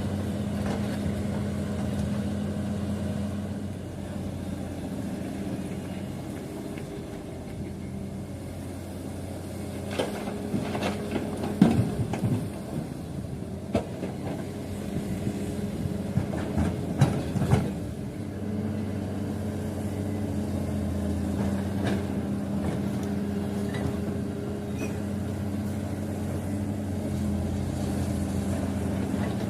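Heavy construction machine engine idling steadily, with a run of sharp knocks and clanks midway through.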